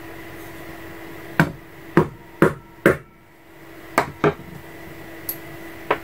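A wooden hammer gives gentle taps to a letter stamp on dampened leather: four quick taps, a short pause, two more, and one last lighter tap near the end.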